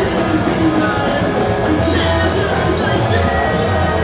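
Pop-punk band playing live at full volume: electric guitars and bass with a man singing lead into a microphone, heard from among the crowd.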